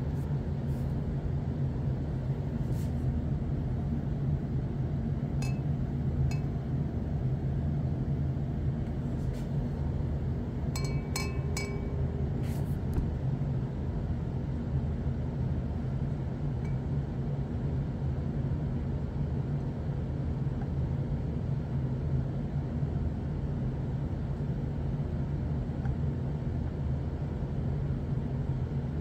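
Steady low hum of running equipment, with a few light glass clinks from a glass tube or pipette knocking against a glass beaker: two about five and six seconds in, and a quick cluster about eleven to thirteen seconds in.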